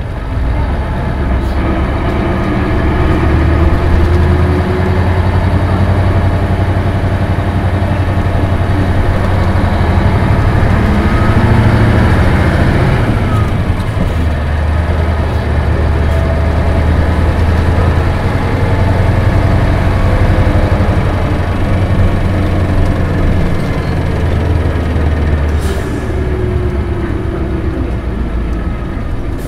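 Onboard sound of a 1996 Isuzu Cubic KC-LV280N city bus under way: the diesel engine runs with a steady low drone over road noise. The engine note dips briefly about halfway through and again near the end.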